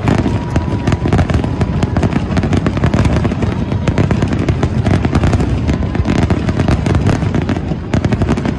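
Aerial fireworks finale: many shells bursting in a rapid, unbroken barrage of loud bangs.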